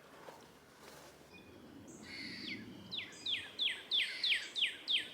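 A songbird singing over faint outdoor background: a phrase starting about two seconds in, then a run of about seven clear notes, each sliding down in pitch, about three a second.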